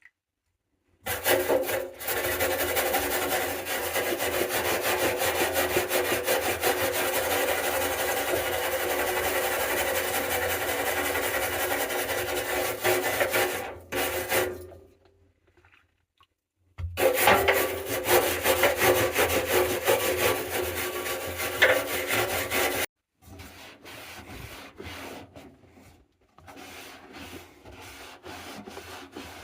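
Hard scrubbing on a Samsung washing machine: a steady, dense rubbing noise that runs for over ten seconds, stops, and starts again. Near the end it turns quieter and choppier.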